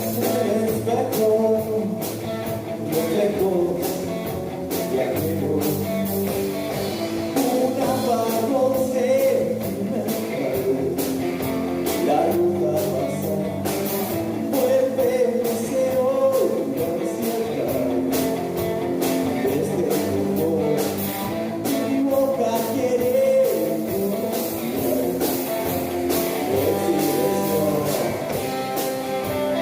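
Rock band playing live, with electric guitar, bass and a steady drum beat.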